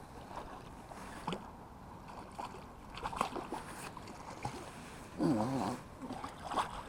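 Wind and small waves lapping, with scattered light clicks and knocks, and a short murmured voice-like sound about three quarters of the way through.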